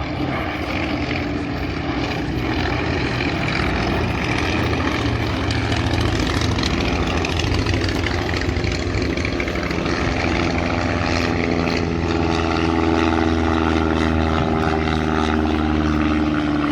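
Propeller aircraft engine running with a steady drone, its pitched hum growing stronger in the second half.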